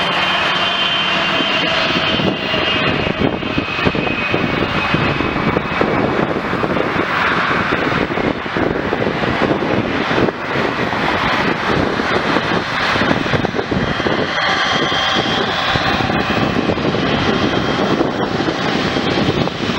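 Jet airliner engines making a loud, steady noise, with faint high whining tones over it.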